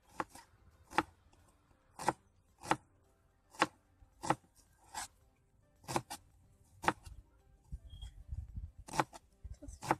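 A kitchen knife chopping shallots on a cutting board: about ten single sharp strokes, roughly one a second and unevenly spaced.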